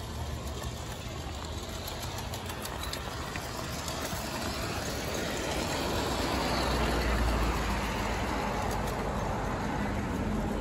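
A garden-scale model train rolling along its outdoor track with a steady rumble from its wheels. The noise swells as the train passes close and is loudest about seven seconds in, then eases.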